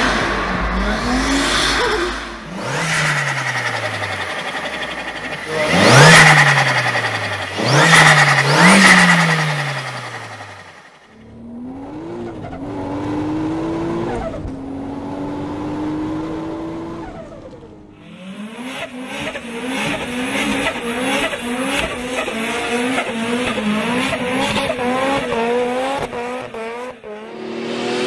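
Turbocharged car engines revving hard and dropping off, several cars in turn, with the loud fluttering turbo chatter on each throttle lift that comes from running without a blow-off valve. The loudest bursts come about six and eight seconds in. Near the end, one engine blips quickly again and again.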